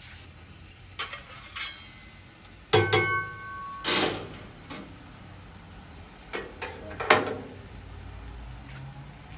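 Metal spatula clanking and scraping on a Blackstone flat-top griddle while sausages and onions are moved around, over a low sizzle. There are several separate knocks, and one strike about three seconds in rings briefly.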